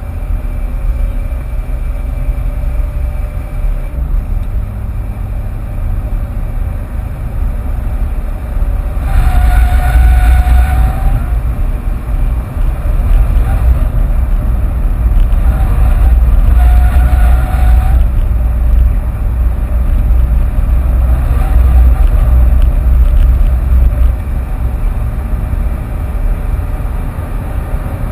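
Ford Fiesta 1.6 TDCi four-cylinder turbodiesel heard from inside the cabin, driven hard on a circuit, with road and wind noise. It gets louder for a long stretch in the middle, and a high-pitched tone rises over it twice, around ten and seventeen seconds in.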